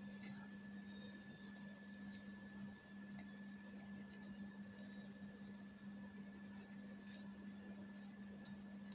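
Pencil scratching faintly on paper in short strokes as lines are drawn, over a steady low hum.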